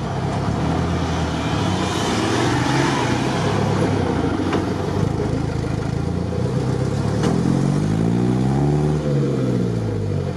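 Off-road truck engine running steadily under way, then revving up and back down about eight seconds in.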